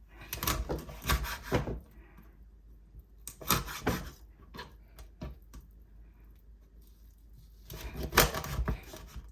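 Knife chopping quail into small pieces on a cutting board: three bursts of quick, sharp knocks.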